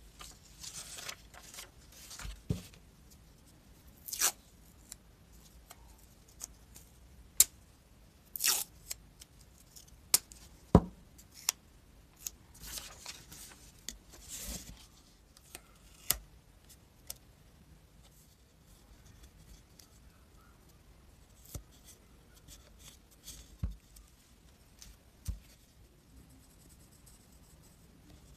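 Sheet of paper rustling and crinkling as it is handled and wrapped around a PVC pipe, with a handful of sharp snaps and clicks scattered through. Near the end, a pencil scratching on the paper.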